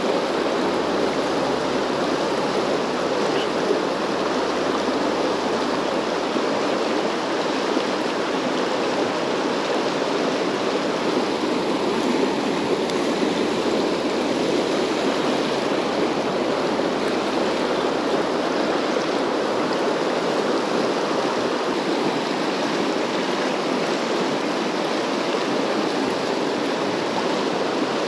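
River water rushing steadily through a fast-flowing stretch, an even, unbroken sound.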